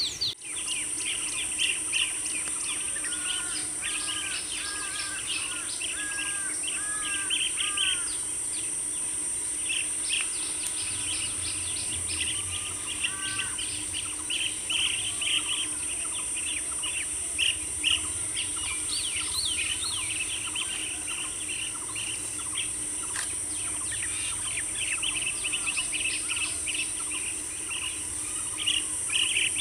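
Birds calling in a busy chorus of short chirps and trills, with a run of repeated arched notes in the first several seconds, over a steady high insect buzz.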